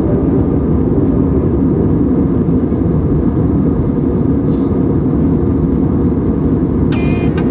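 Steady cabin noise of an Airbus A320 airliner in cruise: a loud, even rumble of engines and airflow heard inside the cabin. Near the end a brief higher sound with several tones cuts in over it.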